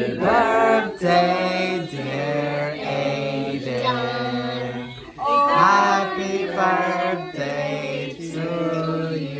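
A group of people singing together, holding long notes.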